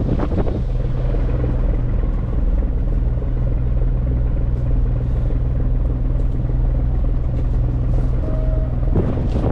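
Tour boat's engine running steadily, a low even drone, with a short burst of noise near the end.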